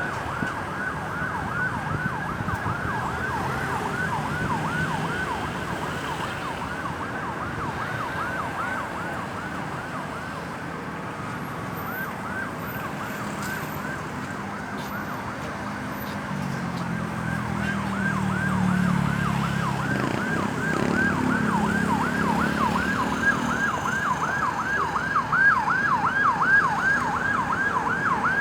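Ambulance siren on a fast yelp, sweeping up and down several times a second, with a short break near the middle. It grows louder in the second half over a low road-vehicle rumble.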